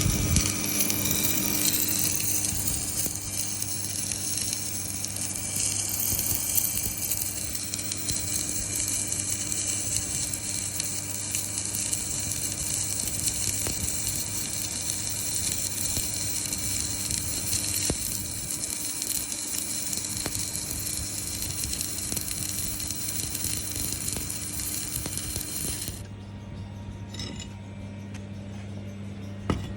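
Daihen 500 submerged arc welding machine at work: a steady transformer hum under a continuous crackling hiss from the arc, which cuts off abruptly near the end while the hum carries on.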